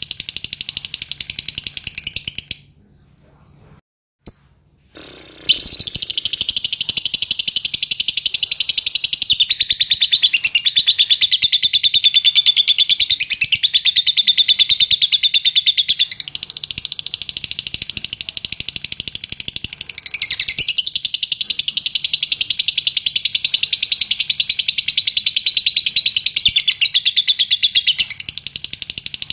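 Fischer's lovebird chattering in a long, fast, unbroken trill. It stops a few seconds in, then starts again about three seconds later and carries on without a pause.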